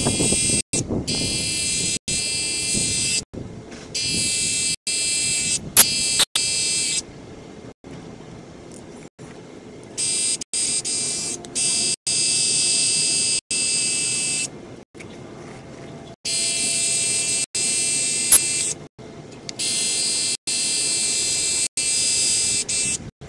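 Cordless split-end remover's small motor whining at a high pitch as hair is passed through its trimming head. It runs in five stretches of a few seconds with quieter pauses between, and a few sharp clicks are heard.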